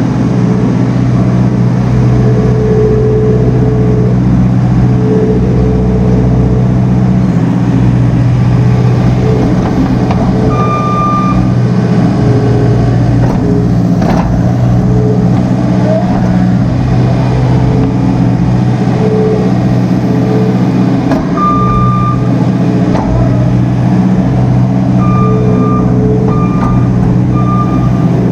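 Farm vehicle engine running steadily and loud, with its reversing alarm beeping as it backs up: a short beep about a third of the way in, another about two-thirds through, and several quick beeps near the end.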